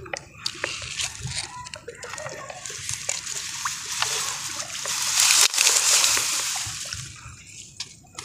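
Shallow lake water sloshing and splashing, building to its loudest about five to six seconds in, then fading, with small scattered clicks.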